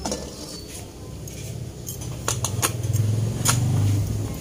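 Cutlery clinking against a dinner plate during a meal, with several sharp clicks about two to three and a half seconds in, over a low hum.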